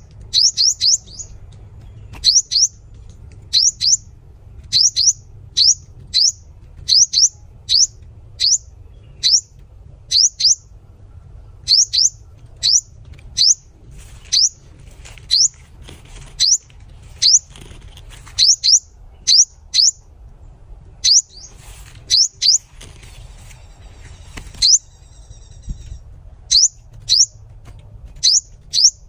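A sunbird calling: a long series of sharp, high chips that fall quickly in pitch, coming about once a second, often two or three in quick succession. A short rustling patch and a buzzy note come about three quarters of the way through.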